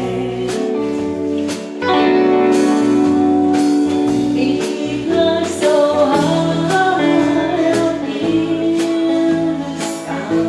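Live rautalanka band playing a slow song: electric guitar, bass and drums, with a woman singing long held notes over a drum beat about once a second.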